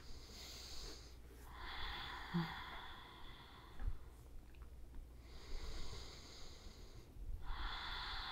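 A woman's slow, deep breathing close to the microphone: two full breaths, each a long, soft hissing breath in and a longer breath out.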